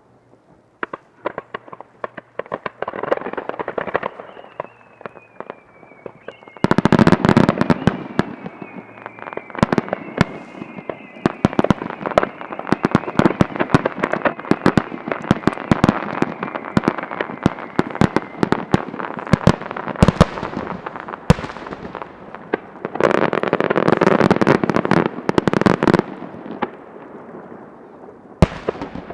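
A wide starmine fireworks barrage: many shells bursting in quick succession, dense crackling mixed with booms. A whistling shell's tone falls in pitch early on, and the heaviest clusters of booms come shortly after the start and again near the end.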